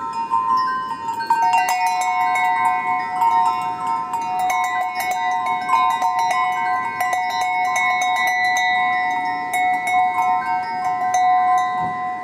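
Background music of sustained chime-like notes over light ticking percussion.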